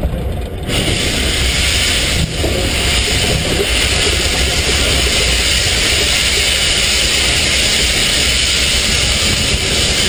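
Steam locomotive venting steam low down by its wheels: a loud, steady hiss that starts suddenly under a second in, over a constant low rumble.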